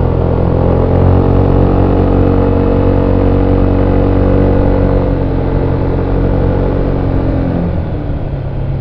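VOGE SR4 MAX scooter's single-cylinder engine on its stock exhaust, running under throttle while riding, heard from on board. The engine note holds fairly steady, then eases off and drops a little in level near the end as the throttle closes.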